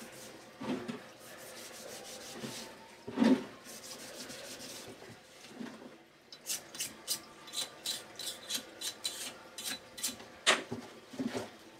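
Scotch-Brite pad scrubbing carbon off a Mazda Renesis rotary-engine rotor in a solvent tank. It starts as slow rubbing with a couple of soft knocks, then about halfway through turns into quick back-and-forth strokes, about three a second.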